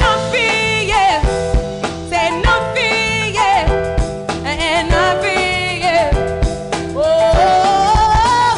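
A woman singing sweeping runs with vibrato over a live band of electric guitar, bass guitar and drums, ending on a long held note that rises.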